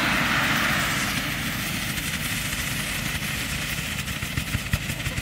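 Fireworks ground fountains hissing as they burn down, the hiss fading about a second in and leaving a low rushing, with a few sharp crackles near the end.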